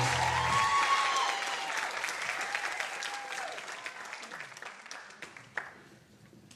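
Audience applause, strongest at first and dying away over about six seconds.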